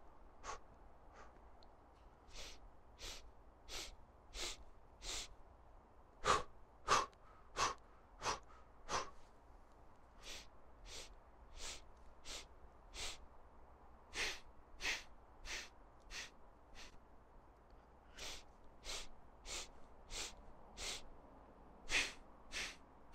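A man's short, sharp breaths through the nose in runs of five, about two a second, with a brief pause between runs: the stepped five-part inhales and exhales of a breathwork exercise.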